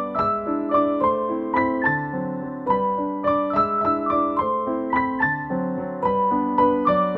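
Background music played on a keyboard: a melody of evenly struck notes, about three a second, over lower chords.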